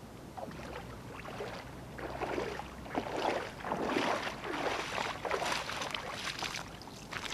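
Footsteps wading through shallow lake water, a splash with each stride, getting louder about two seconds in.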